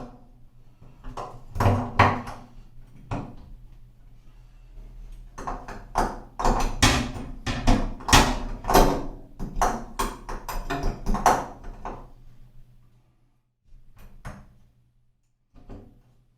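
A run of knocks, clunks and clatter of hardware being handled and fitted, thickest in the middle, over a steady low hum.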